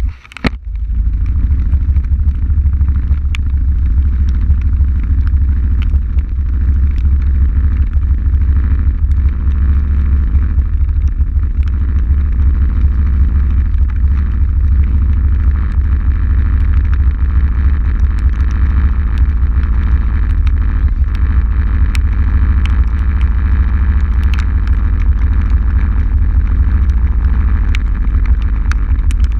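ATV engine running steadily, heard as a heavy low rumble that comes on about a second in after a brief drop. Scattered raindrop ticks throughout.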